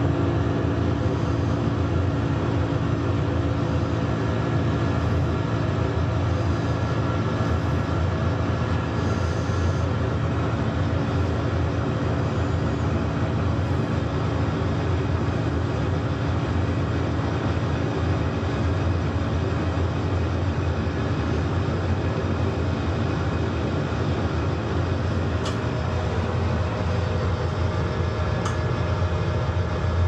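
Steam boiler's burner firing, a steady low rumble that holds without change. Two faint sharp ticks near the end.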